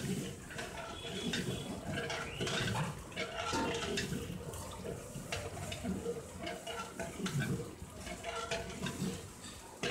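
Long metal ladle stirring through a large aluminium cooking pot of hot water, sloshing and clinking against the pot's side with many short knocks.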